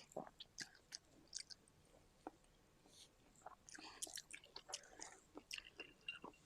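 Faint close-up chewing: small wet clicks and crunches of food in the mouth, growing more frequent about halfway through.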